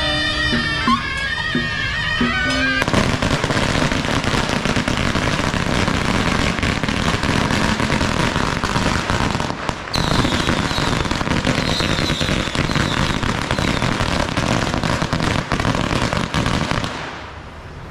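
Music for the first few seconds, then a long string of firecrackers crackling densely for about fourteen seconds. The crackle breaks off briefly around ten seconds in, then fades out near the end.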